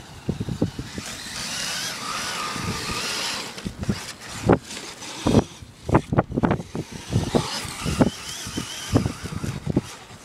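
Traxxas E-Maxx electric RC monster truck driving on grass, its motors and gears whining steadily and wavering in pitch for a couple of seconds. A run of low thumps and knocks follows.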